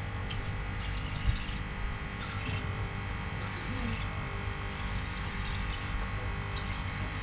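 Boat engine running steadily at a constant pitch.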